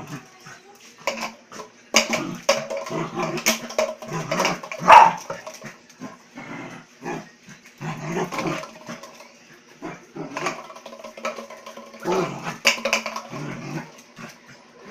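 A puppy playing, with play growls and short barks among scattered clicks and taps.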